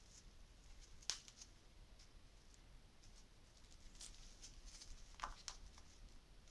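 Faint handling sounds: rustling and a few small sharp clicks as gloved hands work a thin plastic seedling cup and dry potting soil, the clearest click about a second in and a couple more near the end.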